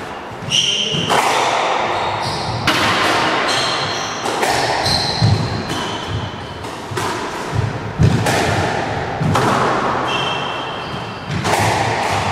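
A squash rally: the ball smacking off rackets and the court walls about once a second, each hit echoing around the enclosed court, with sneakers squeaking on the wooden floor in between.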